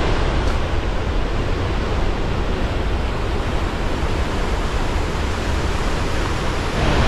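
Loud, steady rushing of Gullfoss, a very powerful waterfall, heard close up.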